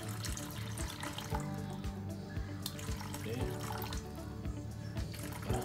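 Water pouring steadily into a plastic tub of uncooked rice, under background music with a steady beat.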